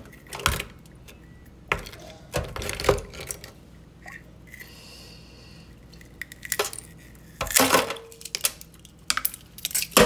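Chunks of ice knocking and clinking against an ice cube tray and a sink, in scattered clatters with a quieter stretch in the middle and the loudest clatter near the end.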